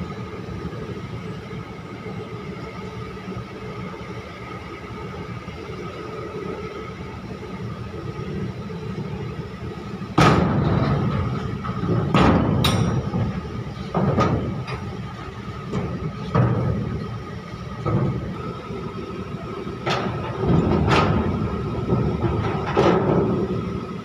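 Steady machinery hum, then from about ten seconds in a series of heavy metal bangs and clanks, roughly one every one to two seconds, as a crane's Stinis container spreader is lowered and set down on a steel shipping container.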